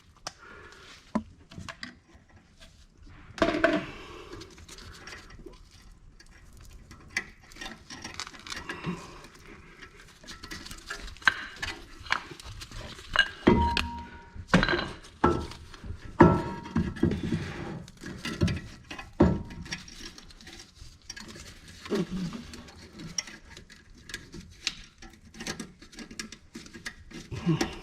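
Irregular metal clinks, light knocks and rattles from handling a front brake caliper and hooking it onto a wire hanger, with one brief ringing clink about halfway through.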